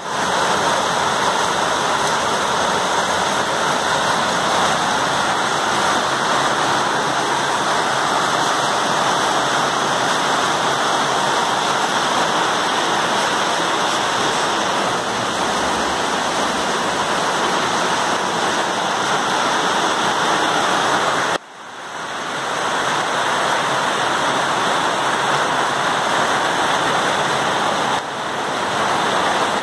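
Heavy rain pouring down in a steady, loud hiss. The sound drops out sharply about two-thirds of the way through and swells back within a couple of seconds.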